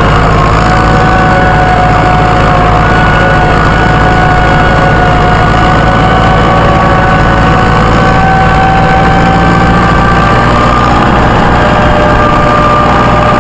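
Massey Ferguson tractor running steadily as it drives along, with a whine that drifts slowly upward in pitch.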